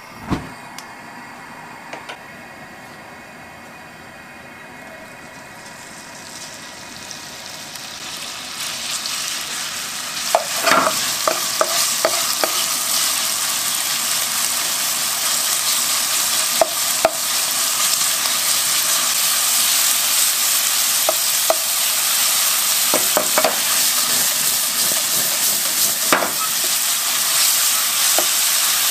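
A click from the gas burner's igniter at the start. Then a sizzle builds into steady frying as diced meat cooks in oil in a nonstick frying pan, with a wooden spoon stirring and knocking against the pan now and then.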